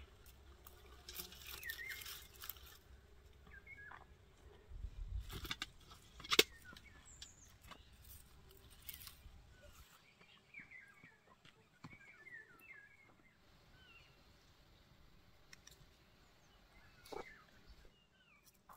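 Faint rustling and handling noises of vegetables being picked, with scattered sharp clicks, the loudest about six seconds in. Small birds chirp now and then.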